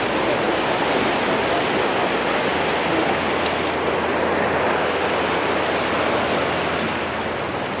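Steady rush of churning whitewater in a dam's tailwater below the powerhouse.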